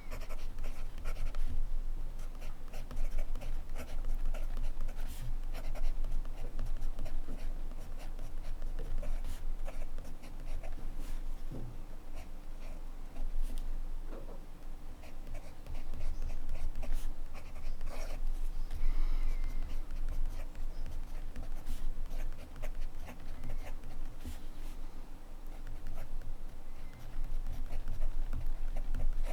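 Montblanc Meisterstück 144 fountain pen nib scratching across paper in irregular strokes, with small ticks as the nib lifts and touches down.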